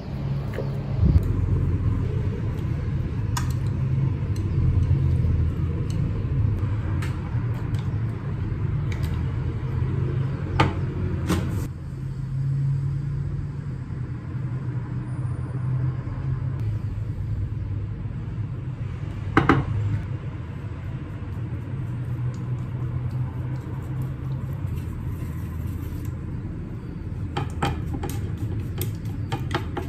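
Kitchen utensils and a sauce bottle giving occasional short clicks and taps while a bowl of bibimbap is put together, the sharpest one a little past halfway, over a steady low rumble.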